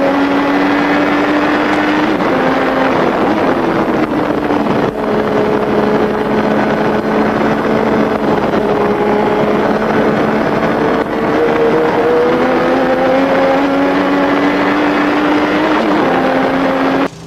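Formula One racing car engine running hard, its pitch climbing slowly and dropping briefly about three seconds in and again near the end, as with gear changes. The sound cuts off sharply just before the end.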